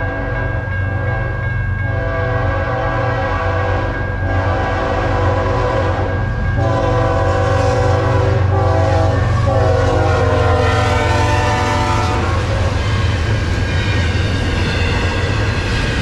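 BNSF diesel freight locomotive sounding its air horn for the grade crossing: several blasts of a chord of notes, the last one held, over the steady low rumble of the engines. About ten seconds in the horn's pitch slides down as the locomotive passes, and it stops about two seconds later, leaving the rumble and clatter of the freight cars rolling by.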